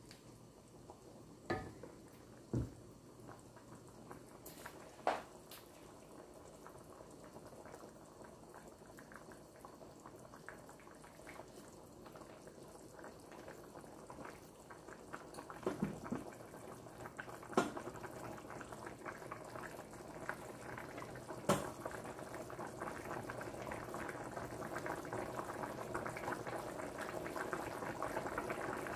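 Chicken tinola broth simmering in a stainless steel pan, bubbling steadily and growing louder toward the end. A few short sharp knocks sound over it.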